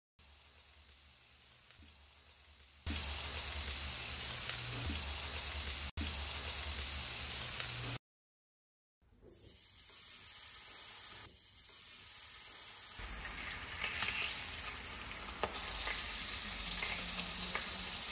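Bacon rashers sizzling on an AGA range cooker, first on a Bake-o-Glide liner on the simmering plate, where the sizzle turns loud about three seconds in. After a second's break, bacon sizzles in a non-stick stainless steel frying pan on the boiling plate, growing louder with a few small pops and clicks.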